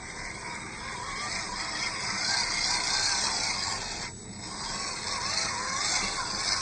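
WPL B14 RC truck's small electric motor and gearbox whining as it drives, the pitch wavering up and down with the throttle; the whine briefly drops out about four seconds in.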